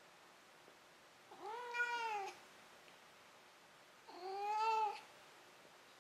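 Domestic cat meowing twice, two drawn-out meows that each rise and then fall in pitch, the first about a second in and the second a little after the middle.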